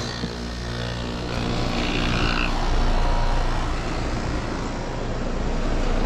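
A 2015 Ruud heat pump's outdoor unit running just after switching on: a steady low compressor hum under the rushing air of the condenser fan, building over the first couple of seconds. It is running with its shorted crankcase heater disconnected, the fault that had been tripping the breaker.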